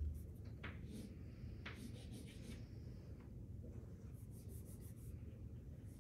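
Chalk scratching on a chalkboard as lines are drawn, in short strokes that come in several bouts, over a low steady hum.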